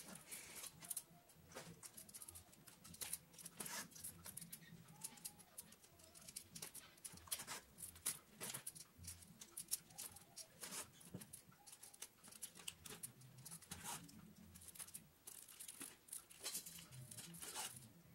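Faint hand saddle-stitching of veg-tan leather: irregular scratchy clicks and rasps as an awl pierces the leather, needles pass through and the thread is drawn tight.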